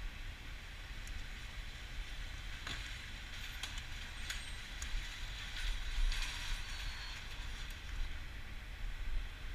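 Steady low rumble and hiss of background noise, with a few faint clicks and taps scattered through the middle. No gunshot stands out.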